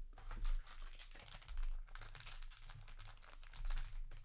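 Crinkling of a foil booster-pack wrapper and trading cards being handled, a dense crackle with a few louder handling swells.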